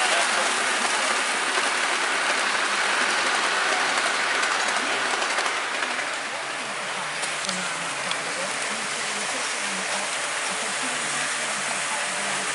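Model trains running on the layout track: a steady rushing rumble of wheels and motors, easing slightly about halfway through.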